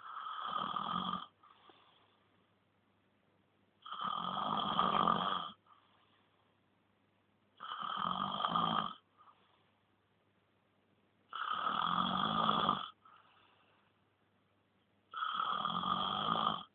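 Snoring: five loud snores at an even pace, about one every four seconds. Each lasts about a second and a half and is followed by a soft breath out.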